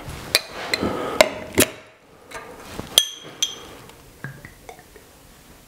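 Cocktail bar tools and a glass tonic bottle handled on a table: a run of sharp knocks and clinks over the first three and a half seconds, the last two ringing briefly, then only a few faint ticks.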